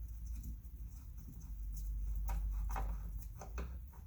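Small T8 Torx screwdriver working a tiny screw out of a car side-mirror housing: a few light clicks between about two and three and a half seconds in, over a low steady rumble.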